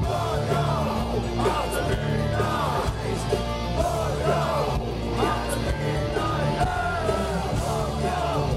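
A melodic death metal band playing live through a stage PA: distorted electric guitars and drums under harsh, shouted vocals.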